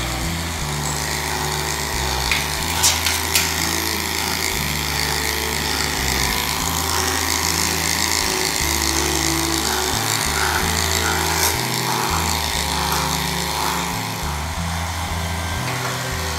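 Background music with slow-changing low chords, over the steady buzz of electric pet hair clippers shaving a dog's matted fur.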